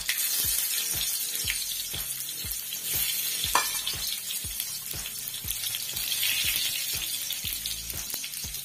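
Chopped onion hitting hot oil in a wok: the oil sizzles up abruptly as the onion goes in and keeps sizzling steadily as it fries.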